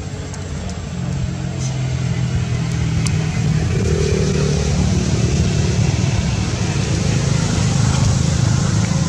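An engine running steadily with a low hum, growing louder over the first two seconds and then holding.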